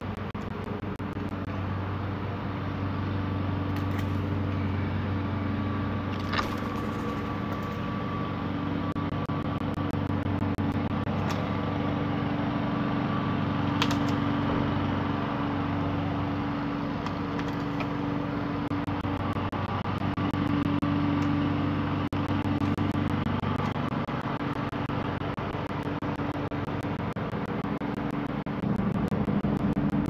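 Steady traffic noise: a continuous low hum of road vehicles, with a couple of faint short clicks.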